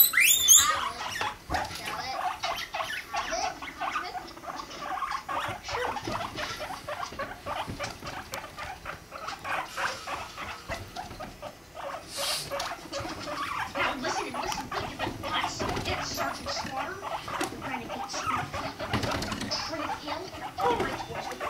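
Guinea pigs calling during mating courtship: a sharp rising squeal right at the start, then a long run of rapid pulsing rumbles and squeaks that swell and fade.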